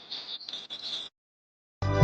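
Outdoor nature ambience with a steady high-pitched chirring, cut off abruptly about a second in. After a short silence, music starts just before the end.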